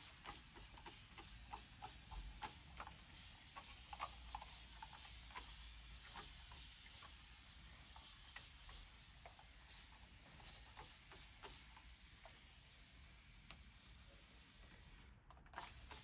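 Water from a plastic bottle being poured into a potted hydrangea's cachepot: faint irregular drips and splashes among the leaves and flowers over a steady soft hiss.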